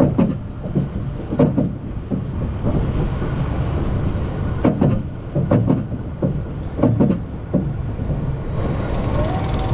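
Roller coaster train running on its steel track: a steady rumble with irregular knocks and clacks, and a tone rising in pitch near the end.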